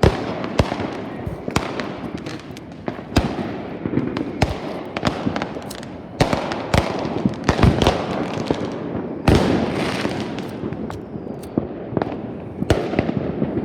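Fireworks going off: sharp bangs at irregular intervals over continuous crackling, with the loudest bang about nine seconds in.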